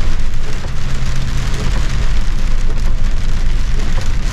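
Heavy rain and hail pelting the roof and windscreen of a lorry cab in a dense, loud patter, over the low, steady hum of the truck's diesel engine.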